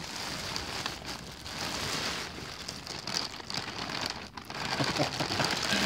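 Clear plastic bag crinkling and rustling continuously as a 2-litre soda bottle wrapped in it is handled in a paper-lined cardboard box.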